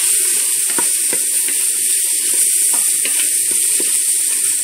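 Sliced cremini mushrooms sizzling in olive oil in an electric pressure cooker's stainless-steel inner pot on its sauté setting, with scattered small pops and crackles. They are cooking until they release their juices.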